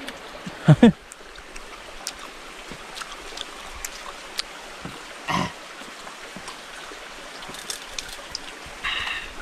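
A stream running steadily, with scattered small clicks and two short louder sounds, about one and five seconds in.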